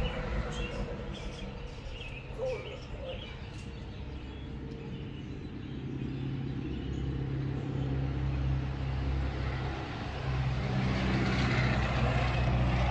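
A motor vehicle's engine running nearby, a low steady hum that grows louder from about six seconds in. A few faint high chirps sound near the start.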